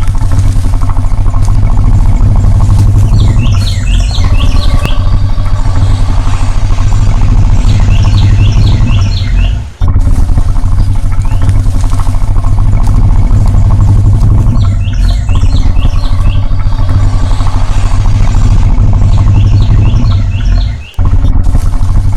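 Crocodile growling: a loud, deep, pulsing rumble that runs almost without a break. Birds chirp in short runs of falling notes over it, and everything cuts out for a moment twice, about ten seconds in and near the end.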